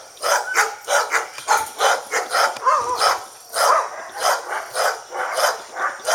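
Dog barking over and over in a fast run of sharp barks, a little over two a second, with a brief break about halfway through.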